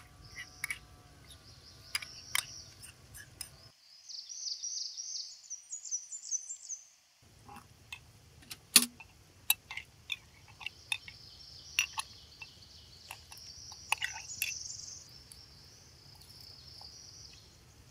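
A metal spoon clinking and scraping against a small glazed clay pot while kashk is stirred, in irregular sharp taps, the loudest about nine seconds in. High chirping runs behind it.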